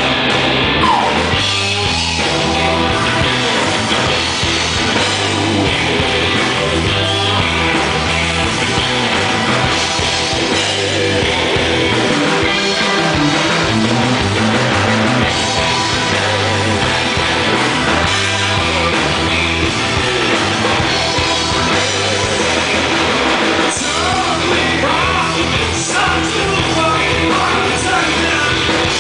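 Rock band playing live, with singing over electric guitar, bass guitar, drums and keyboard.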